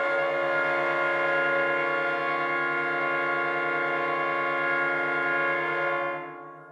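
A loud, sustained brass chord of trumpets and trombones, sounded afresh at the start, held steadily, then fading away in the last second.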